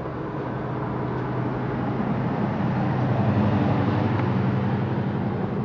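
A motor vehicle's engine hum as it drives past, growing louder to a peak about three and a half seconds in and then fading.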